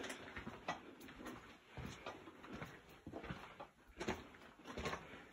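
Footsteps crunching on loose rock and gravel inside a mine tunnel, an uneven step roughly every half second to second.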